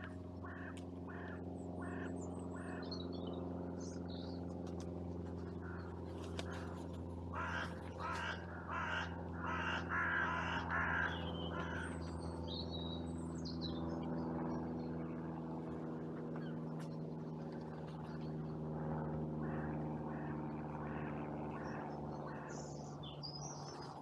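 Carrion crows cawing in repeated series, a run of short calls at the start and a louder, denser bout around the middle, with small birds chirping higher up and a steady low hum underneath.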